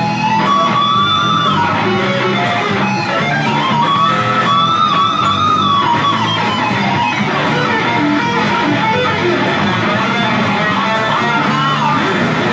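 Rock music with an electric lead guitar playing long held notes that bend up and down in pitch over strummed rhythm guitar and bass.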